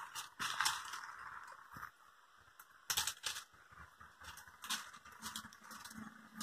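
Lemon tree leaves and twigs rustling and snapping as lemons are picked by hand: a scatter of sharp crackles and snaps, the loudest pair about three seconds in.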